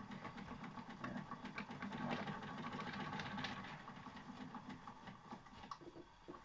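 Wilesco toy steam engine running, with a fast, even chuffing rhythm from its little cylinder. It gets quieter near the end.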